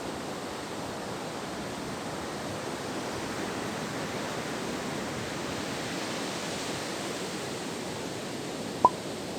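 Steady rushing of surf breaking and washing on a sand beach, swelling slightly through the middle. A single brief sharp sound cuts in near the end.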